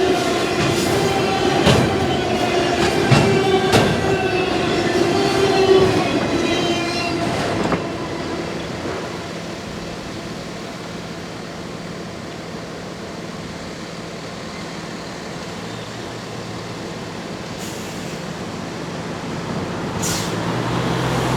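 Freight train cars rolling past with squealing wheels and clicking over the rail joints. About eight seconds in the sound drops sharply to a fainter, even rumble, and a low hum rises near the end.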